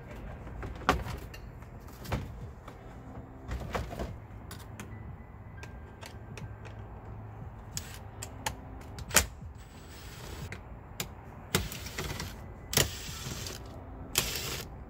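Scattered clicks and knocks of a hand tool and hard plastic dashboard trim being handled while instrument cluster screws are taken out, with a few longer scraping rustles near the end.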